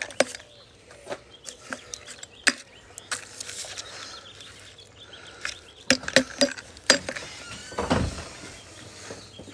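Handling noise: scattered light clicks and knocks, a cluster of them about six seconds in, as foil-wrapped confetti cannon tubes are held and turned in the hands, with one brief low falling sound near the end.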